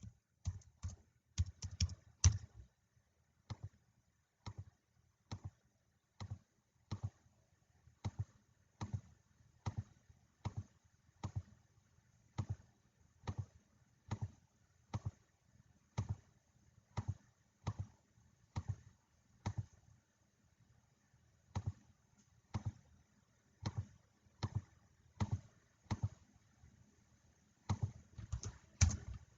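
A steady series of light, sharp taps or clicks, a little more than one a second, coming in a quicker cluster at the start and again near the end.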